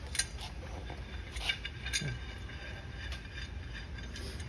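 A few light metallic clinks as a large steel C-clamp is handled and fitted against a brake caliper, over a steady low hum.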